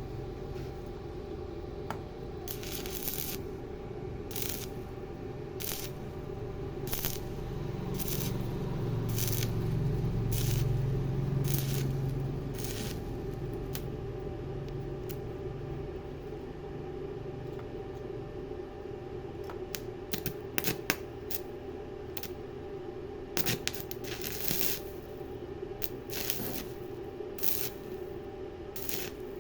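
Steady machine hum with a series of short, sharp scraping strokes, roughly one a second, from metalwork during a welding job. The strokes run for the first dozen seconds or so, then come again more densely from about twenty seconds in.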